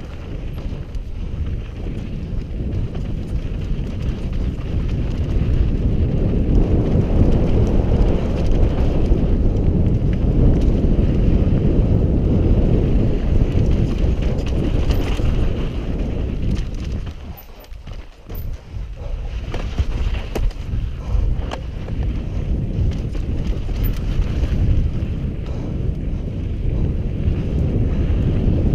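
Wind buffeting a helmet-mounted camera's microphone over the rumble of mountain bike tyres on loose dirt, with frequent rattles and knocks from the bike on a rough, rutted descent. The noise drops briefly about seventeen seconds in, then picks up again.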